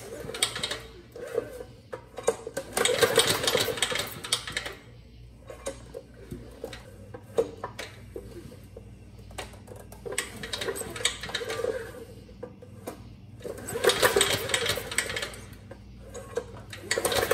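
10 HP Briggs & Stratton engine being turned over slowly by hand through its freshly mounted generator: several spells of clattering, clicking mechanical noise, each a second or two long. It is a check for scraping or binding in the generator, and none is heard from the generator end.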